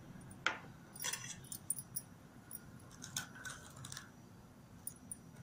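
Steel spoon clinking and scraping against a stainless-steel bowl as gram flour is spooned in: one sharp clink about half a second in, then clusters of light clinks around one second and again around three seconds, with a couple of faint ticks near the end.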